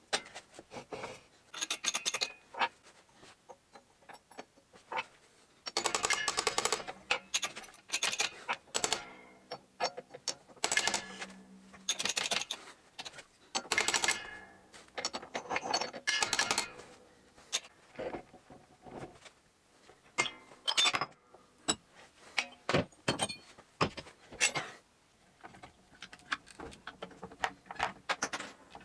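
Hammer striking a steel drift tube set in a bore of an aluminium gearbox casing: repeated ringing metallic blows in clusters, densest over the middle of the stretch, then scattered sharp clicks and clinks of tools and parts.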